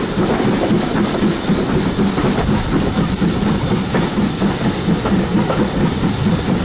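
Steam-hauled passenger train running, heard from an open carriage window: the coaches' wheels rumble and clatter over the rail joints and pointwork in a steady, loud din.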